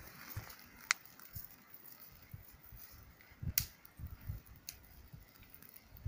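A few sharp snaps of small dry wood as a small campfire is tended: one about a second in, the loudest near the middle, another a second later, over faint low rumbling.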